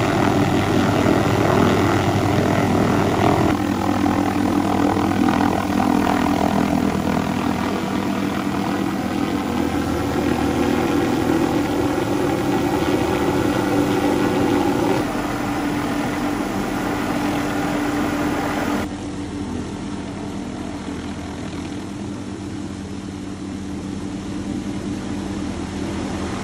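MD 500-series light helicopter hovering close by, its turbine and rotor running steadily. The sound drops a step in level about two-thirds of the way through.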